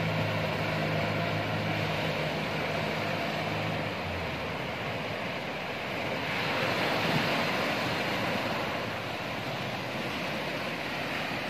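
Outboard motor on a small outrigger fishing boat running with a steady low hum, which drops out about four seconds in as the boat moves off. Surf washes throughout and swells louder as a wave breaks about halfway through.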